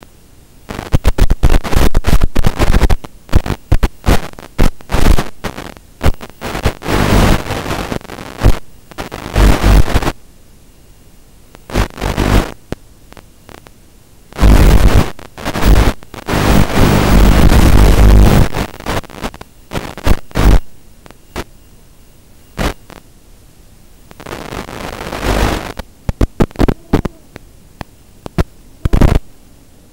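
Loud bursts of radio static and hum from an analog FPV video receiver's audio channel, cutting in and out irregularly with quieter gaps between.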